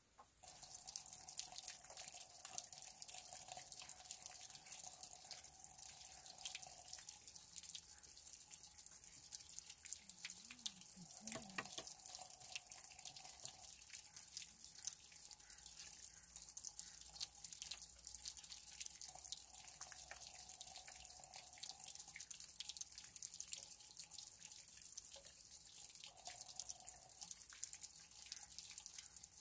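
Water trickling and dripping steadily, a dense patter of small splashes.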